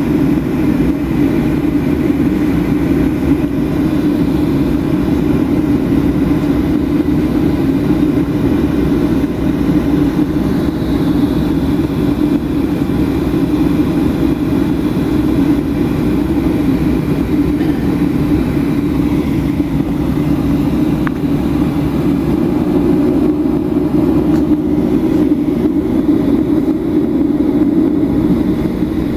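Steady cabin drone of a Boeing 737-800 taxiing, its CFM56-7B jet engines at low taxi thrust, heard from a window seat over the wing. The level holds even throughout, with no spool-up.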